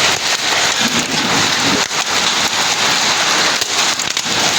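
Heavy rain mixed with hail: a dense, steady hiss of downpour with many sharp hailstone impacts clattering on surfaces.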